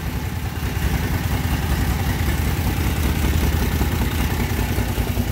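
Kawasaki Brute Force 750 V-twin ATV engine idling steadily in neutral. The freshly rebuilt engine is running smoothly and sounds good.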